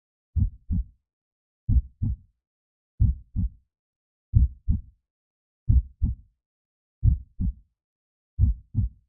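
Heartbeat sound effect: seven slow double thumps (lub-dub), low and dull, about one beat every 1.3 to 1.4 seconds, with silence between beats.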